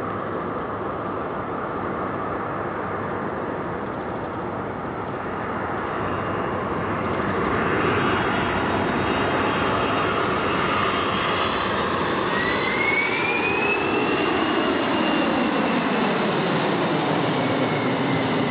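Boeing 747's four jet engines in a low flyover: a steady rushing roar that grows louder as the jet approaches, then, as it passes overhead in the second half, the engine tones glide down in pitch and a high whine rises and slowly falls.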